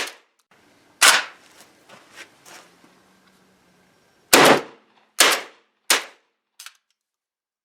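JTS AK-style 12-gauge semi-automatic shotgun firing target loads: a shot, a pause of about three seconds with a few faint clinks, then three shots in quick succession.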